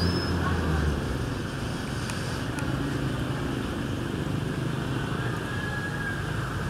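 Passenger train running away down the track, its low rumble fading after about a second and leaving a steady noise.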